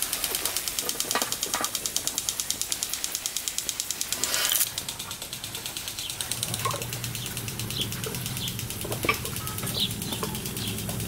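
Insects chirping in a fast, even pulse, about seven beats a second, with a short scraping clatter about four and a half seconds in. Later, short bird chirps come over a low hum.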